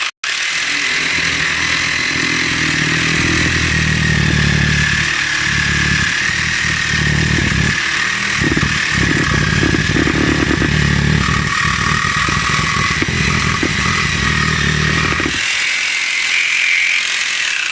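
Small electric jigsaw switched on and sawing through a cricket bat's handle, its motor whining steadily over a heavy rattling cutting noise. About fifteen seconds in the cutting noise drops away and the motor runs on alone until it is switched off at the end.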